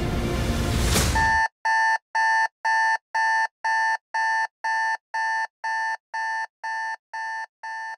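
Background music cuts off abruptly about a second and a half in. A rapid electronic beeping follows, about three short identical beeps a second, slowly fading.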